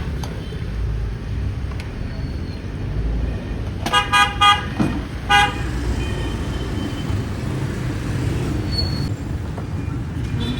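Vehicle horn beeping in short toots, three quick ones then a fourth a moment later, over a steady hum of street traffic.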